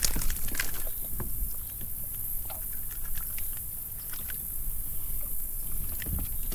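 A hooked fish splashing at the surface beside a boat, with water slapping the hull over a steady low rumble; the splashing comes in the first second and again about six seconds in as the fish is landed.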